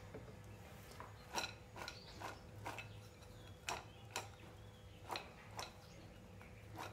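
Fruit salad with nuts and dried fruit being tossed by hand in a glass bowl: a string of faint, irregular clicks and knocks of the pieces against the glass.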